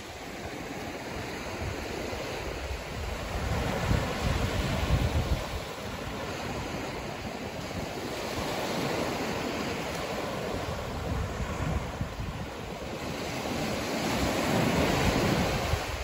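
Small waves breaking and washing up on a sandy beach, the surf swelling and easing in a steady hiss. Wind gusts buffet the microphone, loudest about four seconds in and again near the end.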